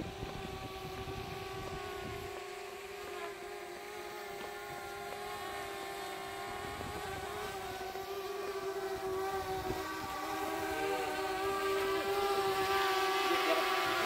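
Quadcopter drone flying overhead, its propellers giving a steady buzzing whine of several tones that grows louder near the end. Wind rumbles on the microphone for the first couple of seconds.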